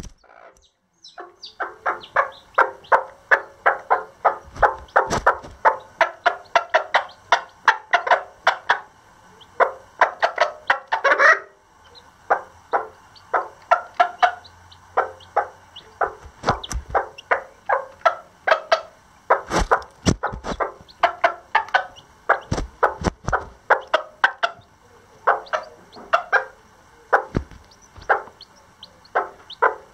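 Lavender Old English Game bantam hen clucking rapidly in short, quick clucks several a second, with a brief pause midway. A few dull knocks sound under the clucking.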